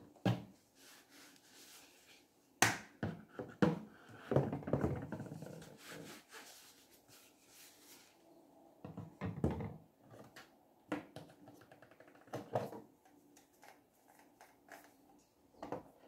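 Plastic toiletry bottles being picked up and set back down on a wooden wardrobe shelf: several separate knocks and clunks, with a stretch of cloth rubbing over a bottle about four seconds in.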